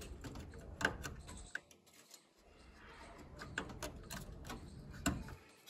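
Faint, scattered clicks and small knocks of a plastic automotive relay and its wires being handled and pushed back into the under-hood relay box.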